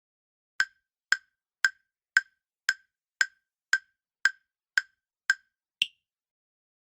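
Quiz countdown-timer sound effect: ten short wood-block-like ticks at about two a second, ending in an eleventh, higher-pitched tick that marks the time running out.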